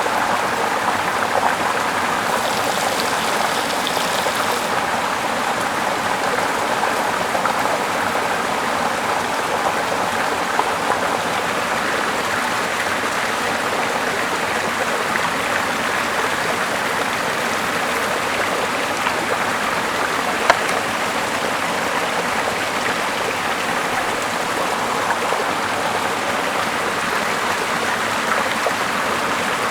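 Steady rush of running water, even and unbroken, with a brief brighter hiss a few seconds in and a single sharp click about two-thirds of the way through.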